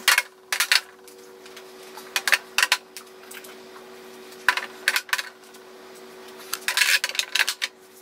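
Cosmetic powder jars being set down into a clear acrylic drawer organizer: several bursts of light clacks and clinks as the jars knock against the acrylic and each other, over a faint steady hum.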